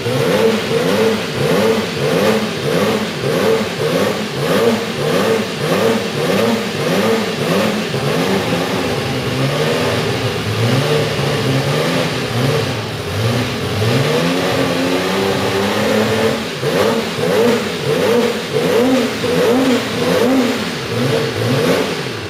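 Ferrari 126C4 Formula 1 car's 1.5-litre turbocharged V6 running while stationary, revved in quick repeated throttle blips, its pitch rising and falling over and over.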